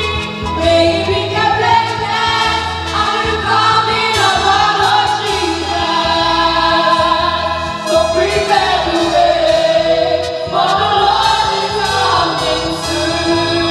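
Children's choir singing a gospel song in unison into microphones, over instrumental backing with a steady bass line.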